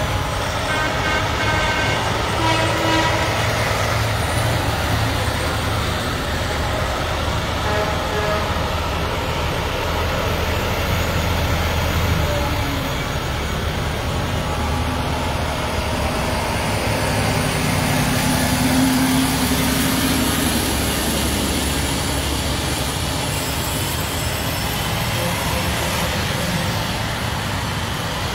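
Tow trucks passing in procession: heavy diesel engines running, with horns sounding. Several horn tones ring out together in the first few seconds, and a lower horn blast comes about two-thirds of the way through.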